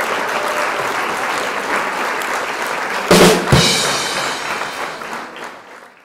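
Closing rock music: drums over a dense noisy wash, with two heavy drum hits and a cymbal crash about three seconds in, then fading out.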